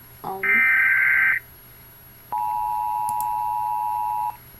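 United States Emergency Alert System tones. First comes a one-second burst of the digital SAME header data tones. After a pause of about a second, the steady two-tone attention signal sounds for about two seconds and cuts off abruptly.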